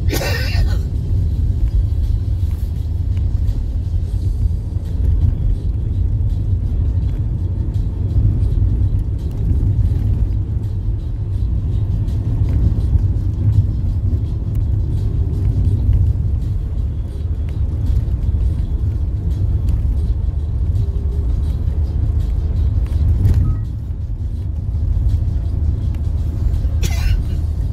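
Steady low rumble of a car driving along, heard from inside the cabin: tyre and engine noise on a rough, patched asphalt road.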